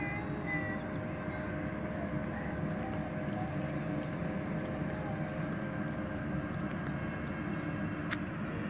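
Supreme-Hobbies Airbus A320 radio-controlled model jet in flight, its electric ducted fans giving a steady whine over a rushing noise. A thin high whine joins in about two seconds in.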